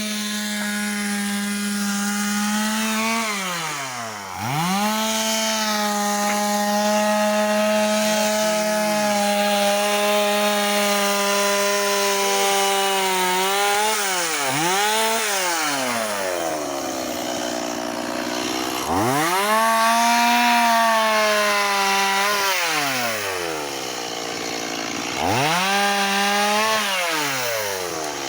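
Chainsaw running at high revs and cutting firewood. Its pitch drops and climbs back several times, about four seconds in, around fourteen and eighteen seconds, and again near the end, as the engine slows under load in the cut and then revs free.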